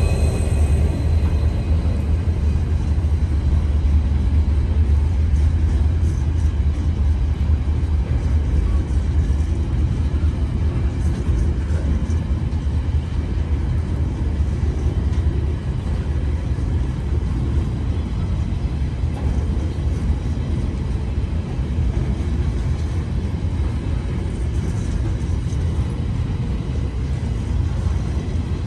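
Freight train's grain hopper wagons rolling past at speed: a loud, steady low rumble of steel wheels on rail.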